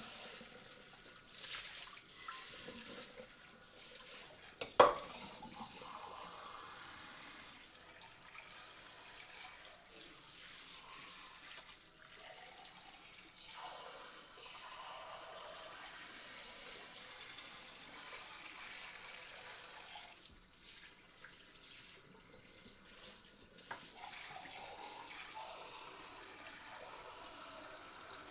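Tap water running into a sink, the flow swelling and splashing now and then, with one sharp knock about five seconds in.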